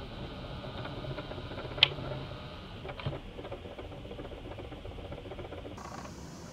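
Handling noise from a handheld Nikon P900 camera: steady hiss with a few sharp clicks and taps, the loudest about two seconds in.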